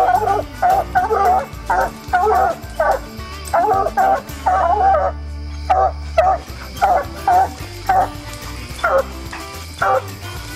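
Coonhounds barking treed, a steady run of short, loud, ringing barks at about two or three a second with a brief pause midway: hounds that have a raccoon treed, or believe they do.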